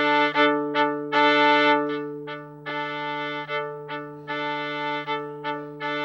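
Live-looped viola: a steady held drone under a repeating phrase of long and short bowed notes.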